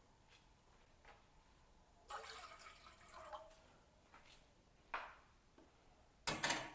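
Water poured into a pan, a splashing run about two seconds in with its pitch rising slightly as it fills. A short, loud knock near the end.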